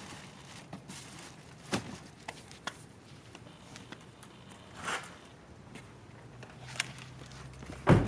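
A person's footsteps and shoe scuffs on paving, with a few scattered light knocks and one sharper thump just before the end.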